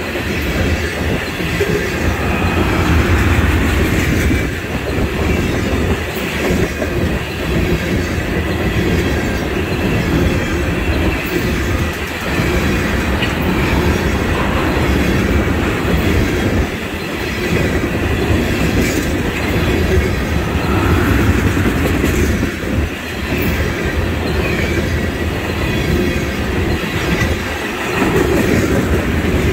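Ethanol tank cars of a freight train rolling past close by: a steady loud rumble of steel wheels on rail, with repeated clicks as the wheels cross the rail joints.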